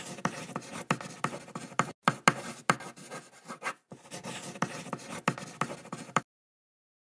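Writing sound effect: a pencil scratching across paper in quick strokes with sharp ticks. It breaks off briefly about two and four seconds in and stops about a second before the end.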